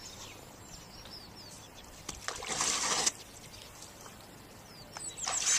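Water splashing and trickling as an elephant's trunk dips and draws from a pool, in two short bouts, about two and a half seconds in and again near the end. Small birds chirp a few times in the background.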